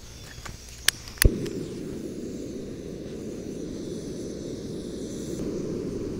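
Backpacking stove being lit: a faint hiss of fuel, two sharp ignition clicks about a second in, and on the second the burner catches and burns with a steady low rush.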